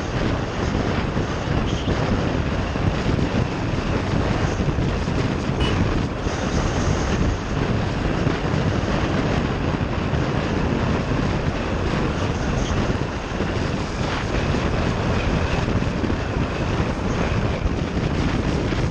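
Motorcycle riding along at steady speed, its engine mixed with wind rushing and buffeting over the microphone.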